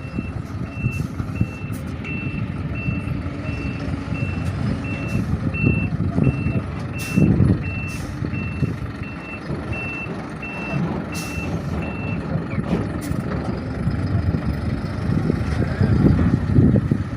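Reversing alarm on a heavy work vehicle, beeping about three times every two seconds over its running diesel engine while it backs up, then stopping about twelve seconds in. A few clanks and knocks of work equipment.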